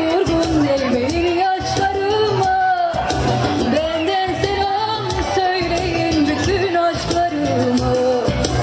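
A girl singing into a microphone over amplified backing music, holding long, wavering notes.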